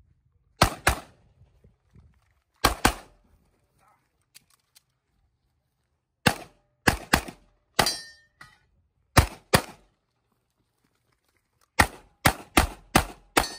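Handgun shots fired in quick pairs, about fifteen in all, in bursts with pauses of a second or more between them and a fast string of six near the end. One shot about eight seconds in is followed by a brief metallic ring.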